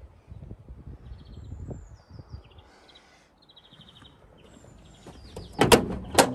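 Land Rover Series 2 door being unlatched and opened: two sharp metal clicks about half a second apart near the end. Birds chirp, and there are soft low thumps of footsteps and handling before it.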